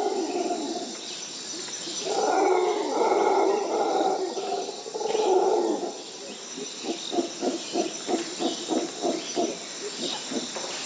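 Howler monkeys roaring: three long, rough roars in the first half, then a run of short grunting pulses, about four a second. A steady high-pitched whine runs underneath.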